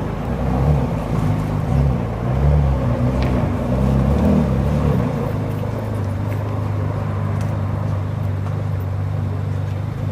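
Ferrari 458 Speciale's naturally aspirated V8 running at low revs: uneven and unsettled for the first half, then settling into a steady idle about halfway through.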